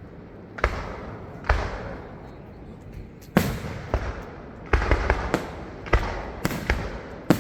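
Aerial fireworks shells bursting overhead one after another: about a dozen sharp bangs, each trailing off in a rumbling tail, coming faster in the second half.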